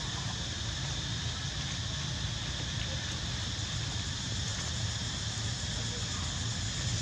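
Steady outdoor ambience with no distinct events: a continuous high drone over a low rumble.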